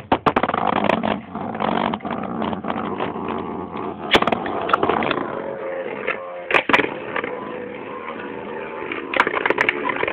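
Two Beyblade spinning tops launched into a plastic stadium, a sharp burst at the very start, then whirring and scraping as they spin against each other. Sharp clacks mark their collisions, the loudest about 4, 6.5 and 9 seconds in.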